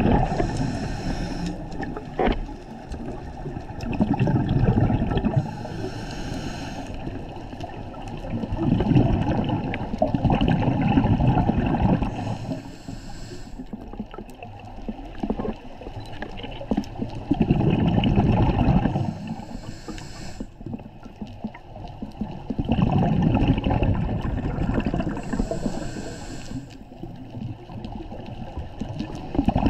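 Scuba diver's regulator breathing underwater: a short hissing inhale followed by a longer bubbling exhale, repeating about every six to seven seconds.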